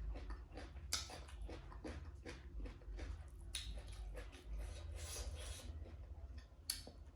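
A person chewing food close to the microphone: irregular wet mouth clicks and smacks, with a few louder crunchy crackles about a second in, midway and near the end.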